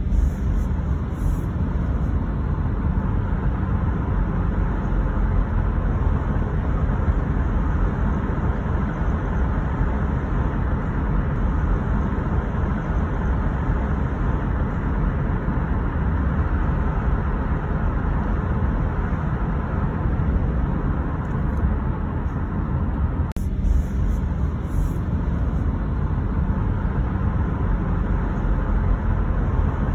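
Car driving on a road: a steady rumble of tyre and road noise, heaviest in the low end, with a momentary dip about three-quarters of the way through.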